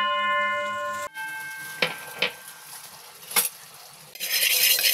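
A metal pan ringing after being knocked, then a few light clinks, and from about four seconds in the hiss of hot oil sizzling with salt and turmeric in the steel pan.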